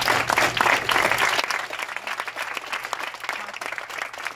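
Audience applauding, loudest for about the first second and a half, then easing to lighter clapping.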